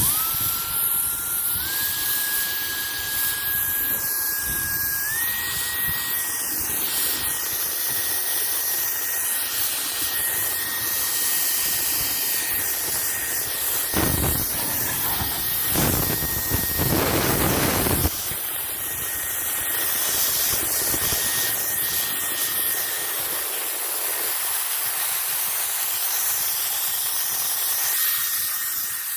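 Cordless handheld turbo jet blower fan running with a steady rush of air. Its high motor whine steps up in pitch twice as it is switched up through its speeds. A louder rush of air comes about midway, and the whine drops out in the latter part while the rush goes on.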